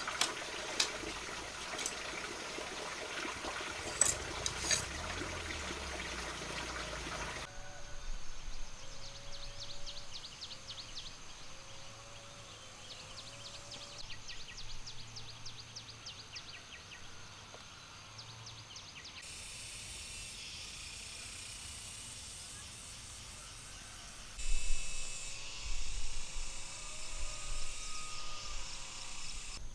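Outdoor rural ambience in several abruptly cut segments: a dense splashing, water-like noise with clicks, then rapid high-pitched insect-like chirring with short calls lower in pitch.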